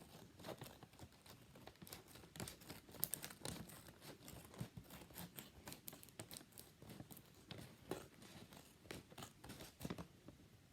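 Scissors cutting into a plastic blind bag, with the packaging rustling as it is handled: a faint run of irregular snips and clicks.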